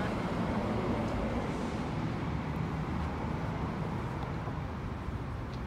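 Road traffic noise: the steady hum of a passing car, slowly fading away.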